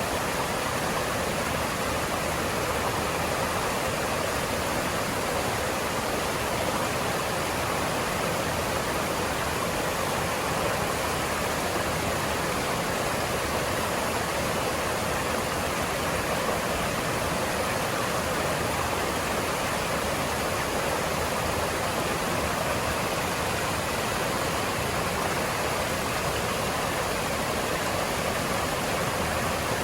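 Mountain stream rushing over rocks: a steady, unbroken wash of running water.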